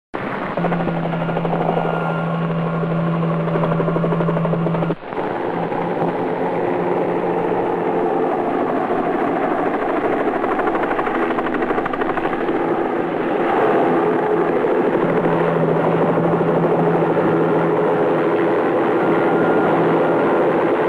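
Several military helicopters flying over, with a loud, steady rotor and engine noise and a held low drone. There is a brief break about five seconds in.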